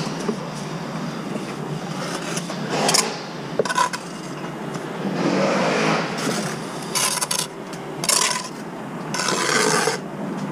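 Bricklaying work on a scaffold: several short bouts of scraping and rubbing, with no voices.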